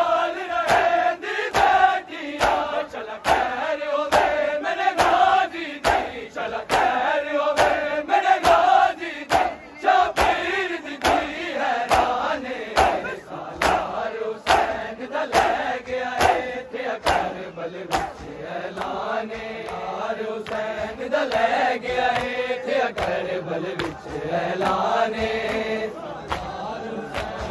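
A crowd of male mourners chanting a Punjabi noha together over a steady, even beat of matam: open palms striking bare chests in unison.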